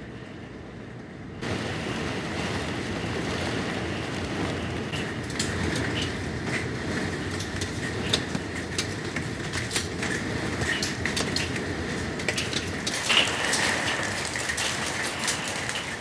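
Heavy thunderstorm downpour that gets suddenly louder about a second in, with a growing patter of sharp ticks from pea-sized hail striking hard surfaces.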